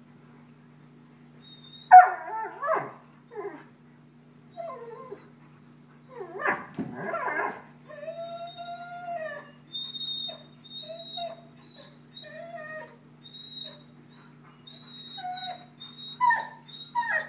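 Two Airedale terriers growling and whining at each other in rough play. A sharp growling outburst comes about two seconds in and a rumbling growl a few seconds later. These are followed by a string of short, rising-and-falling whining cries, and more growls near the end.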